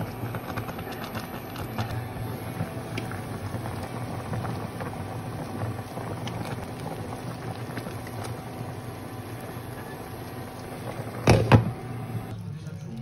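Pork boiling in a pot of water, a steady bubbling over a low hum, with a few light clicks from a metal spoon turning the meat. Near the end a glass pot lid clatters twice as it is set on the pot, and the boiling goes muffled under it.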